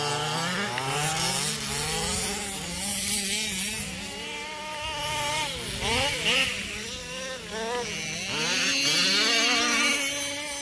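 Small two-stroke petrol engine of a 1/5-scale RC car running and revving, its pitch wavering up and down throughout, with a drop and climb about six seconds in.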